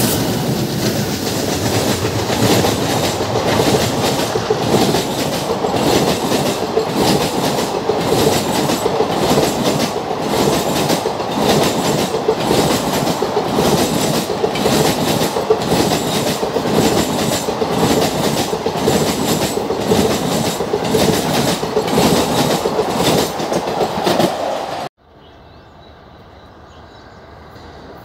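ICF passenger coaches rolling past at a sedate pace, their wheels clicking in a steady rhythm over a continuous rumble. About three seconds before the end the sound cuts off abruptly to a much quieter rumble that slowly grows louder.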